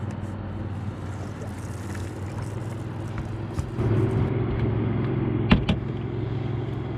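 A boat motor drones steadily on the water, growing louder about four seconds in. A single sharp click or knock comes about a second and a half later.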